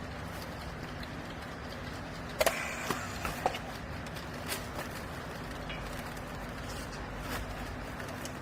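Steady low machine hum with a few scattered sharp knocks and clicks, the loudest about two and a half seconds in.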